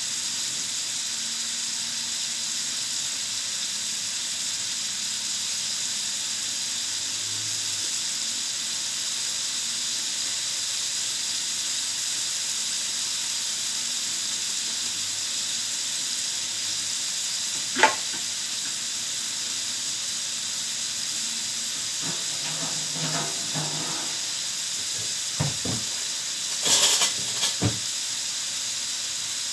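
Liver pieces frying in oil in a large wok, giving a steady sizzling hiss. A single sharp click comes about 18 seconds in, and a few knocks and clatters follow near the end.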